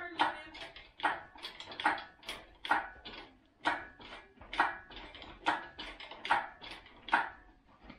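Hydraulic engine hoist being pumped by its hand lever to lift a hanging engine: a sharp metallic clank on each stroke, about one a second, nine in a row.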